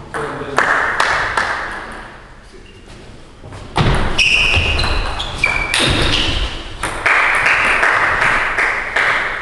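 Table tennis rally: the celluloid ball clicking sharply and repeatedly off the bats and the table. A few short high squeaks come about four to five seconds in, and a longer spell of louder noise follows near the end.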